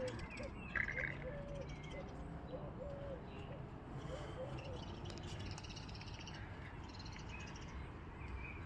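Birds calling: a short, low, cooing call repeated several times in the first few seconds, with higher chirps here and there, over a steady low rumble.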